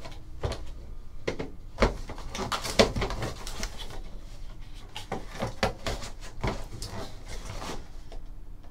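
Cardboard box parts and a foam insert being handled on a table: a run of scrapes, rustles and light taps, with sharper knocks about two and three seconds in.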